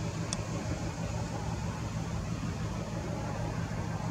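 XPT diesel power car's engine running, a steady low hum. A short high chirp sounds about a third of a second in.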